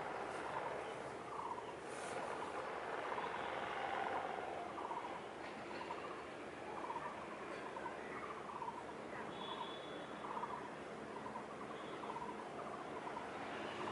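Short, rattly calls from an animal, repeated irregularly one or two times a second, over steady outdoor background noise.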